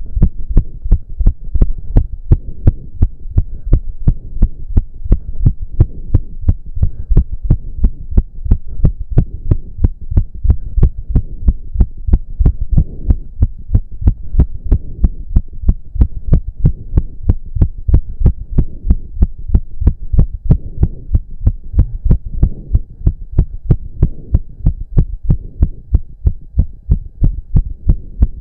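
A man's heart pounding very fast after intense cardio exercise, the beats coming in a rapid, even series of deep thumps. Heavy breathing comes and goes softly between them.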